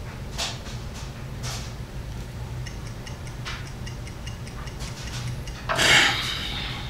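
Video-chat app's countdown timer ticking about once a second, with a run of faster, lighter ticks as it nears zero. A short, louder sound comes near the end as the chat disconnects.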